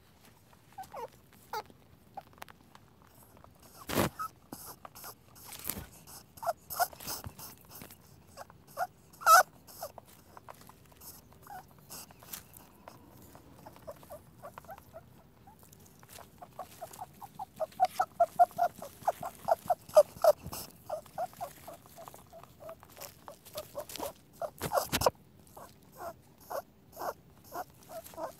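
Rabbit squeaking: short, high squeaks, scattered at first, then a fast run of several a second a little past halfway, with a few sharp clicks in between.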